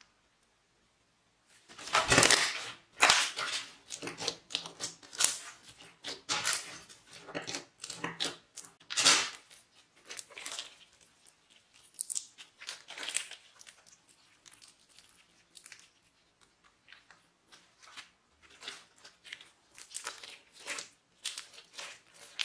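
Sequin-filled glitter slime being stretched and squeezed by hand, giving irregular sticky crackles and pops. They start about two seconds in and are loudest in the first half.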